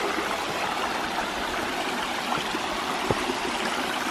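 Steady rushing of water from a small waterfall and creek, an even hiss with a few faint knocks over it.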